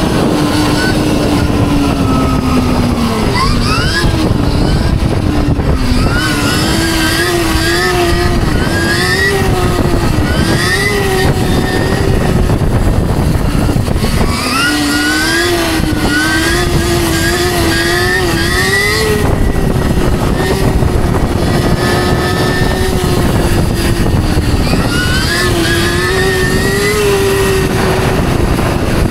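Stark Varg electric dirt bike's motor whining, its pitch rising and falling again and again with the throttle, over a steady rush of wind and road noise.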